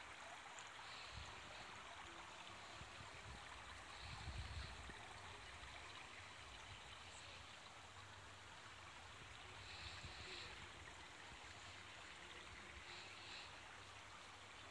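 Near silence: a faint, steady rushing outdoor ambience at night, with brief low rumbles about four and ten seconds in.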